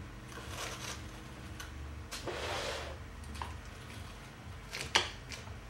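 Hands fitting velcro-backed diamond abrasive discs onto the stiff bristle brushes of an old floor polisher: soft rustling, a longer rustle about two to three seconds in, and one sharp click near the end.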